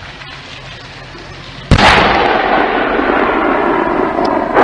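A tank's main gun fires once about a second and a half in: a sudden very loud blast followed by a long rolling echo that slowly dies away. A second blast starts right at the end.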